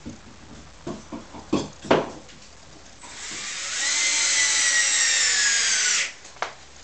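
A few sharp knocks as the metal shelf bracket is set against the wall, then a cordless drill-driver runs for about three seconds, driving a fixing screw through the bracket into the wall, its pitch sinking slowly as the screw draws tight before it stops abruptly.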